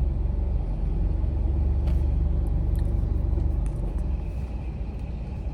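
Steady low road rumble of a moving car, easing a little about two-thirds of the way through.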